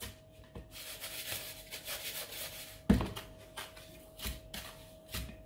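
Hands rubbing and pressing an egg-coated pork cutlet into dry breadcrumbs in a glass bowl: a gritty rustling for a couple of seconds, then one louder thump about three seconds in and a few lighter taps after it.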